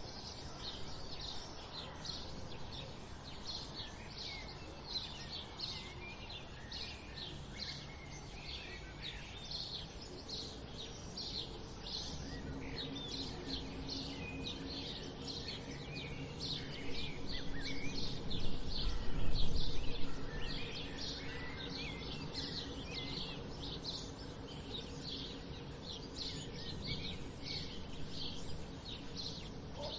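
Dawn chorus of many sparrows chirping in quick, overlapping short calls. In the middle a low rumble with a steady hum swells up, is loudest around two-thirds of the way through, and fades away.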